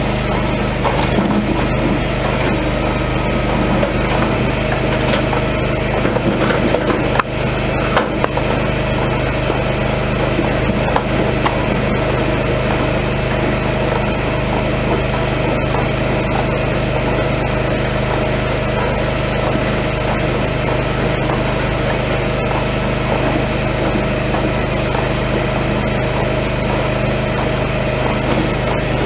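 Regon R1 firewood processor running steadily with a constant machine drone. Sharp knocks and clatter of logs being cut and split come mostly in the first several seconds.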